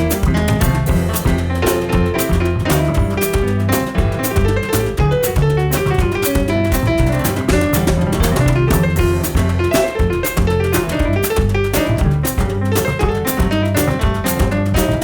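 Jazz trio of piano, bass and drum kit playing a Cape jazz goema groove, with busy drums and a walking bass line under the melody.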